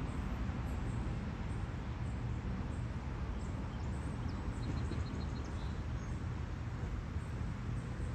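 Steady low rumble of outdoor background noise, with a faint, quick run of five high ticks or chirps about four and a half seconds in.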